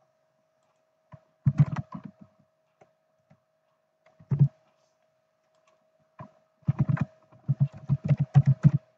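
Computer keyboard typing: a short burst of keystrokes, a lone stroke or two, then a longer, faster run of keystrokes near the end.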